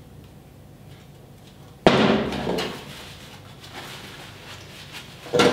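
A sudden loud knock about two seconds in that rings and dies away over most of a second, then a second sharp knock at the very end.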